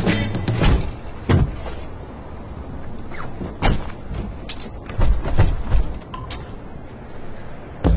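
Car door handle clicking and the door thudding, among a scatter of sharp knocks and clicks.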